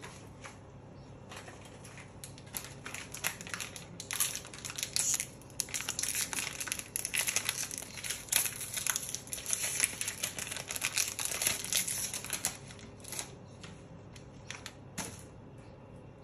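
Plastic packaging being crinkled by hand: dense, irregular crackling that lasts about eleven seconds, then two single crackles before it stops.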